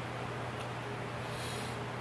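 Steady low electrical hum under a hiss of room noise, with one faint tick and a brief soft rustle about a second and a half in.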